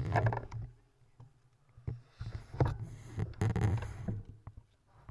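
Riding noise picked up by a camera on a road bike's handlebar on a rough, muddy lane: irregular surges of wind and tyre noise, strongest about two to four seconds in, with scattered clicks and knocks from the bumps.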